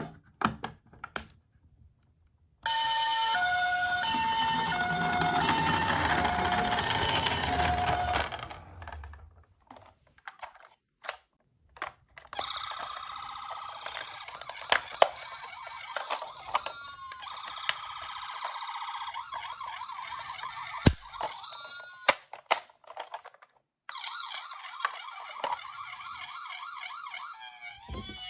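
Toy emergency vehicles' electronic sirens. First a two-tone hi-lo ambulance siren alternates for about six seconds over a low rolling rumble. Then come clicks and knocks, and more siren sounds with short swooping glides.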